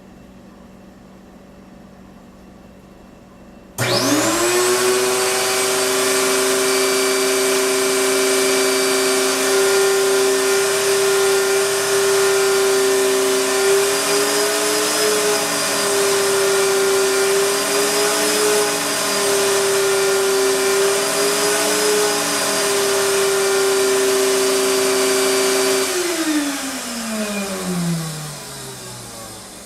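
Astro Vac central vacuum power unit starting abruptly about four seconds in and running with a steady, loud motor whine for about twenty seconds, then shut off near the end and spinning down with a falling pitch. The motor's bearings are bad.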